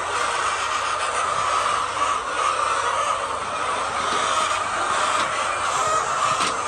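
Steady, dense din of a large flock of chickens in a poultry house.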